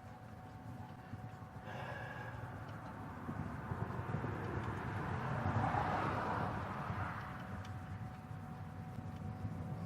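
A vehicle passing by, its noise swelling to a peak about six seconds in and then fading, over a steady low rumble.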